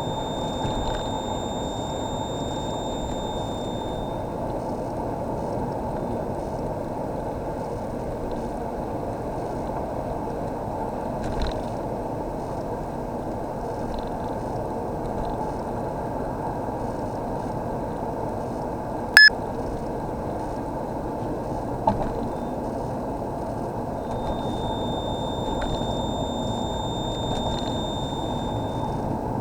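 Steady car cabin and road noise while driving, with a thin high-pitched whine from behind the dashboard near the air-conditioning console. The whine comes in for about four seconds at the start and again for about five seconds near the end. It is the intermittent whine that the owner hears with the AC on, mostly when off the accelerator or braking. A single sharp click about two-thirds of the way through.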